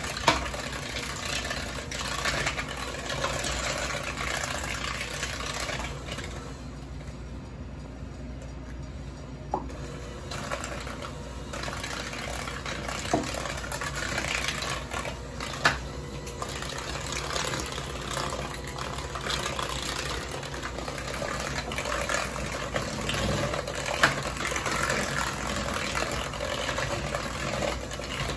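Electric hand mixer running steadily, its beaters churning creamed butter and sugar in a glass bowl, with a few sharp taps now and then.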